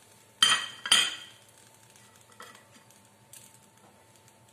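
Two sharp clinks of kitchenware, about half a second apart, ringing briefly, then only a few faint ticks.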